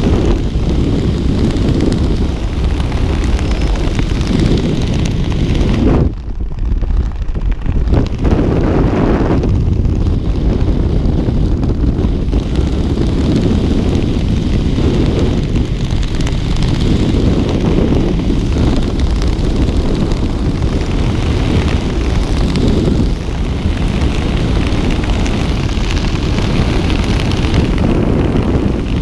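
Loud, steady wind buffeting a skydiver's camera microphone as air rushes past, with a brief drop in the hiss about six seconds in.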